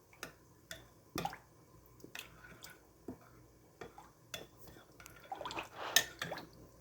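A spoon stirring a soy-sauce marinade in a bowl, with irregular clinks and taps against the sides and small liquid sloshes, busier near the end.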